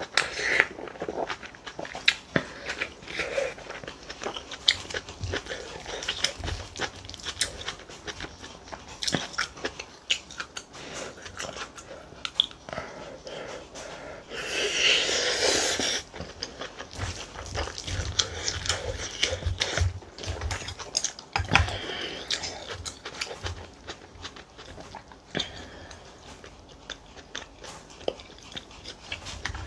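Close-up chewing, biting and mouth sounds of a person eating rice with fermented soybean stew and kimchi, punctuated by small clicks from the spoon and chopsticks. About halfway through there is a louder rush of sound lasting about two seconds as a spoonful of the hot stew goes into the mouth.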